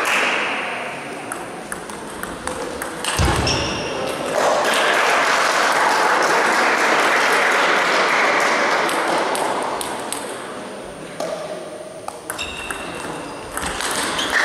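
Table tennis ball clicking sharply off the bats and table during a rally, followed by several seconds of applause in the hall that fades out, then ball taps again as the next rally gets going near the end.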